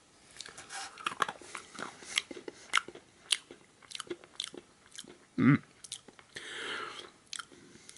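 A person biting and chewing a hard, chalky 33-year-old 1983 Topps candy: a run of short, crisp crunches, with a brief hum from the mouth past the middle.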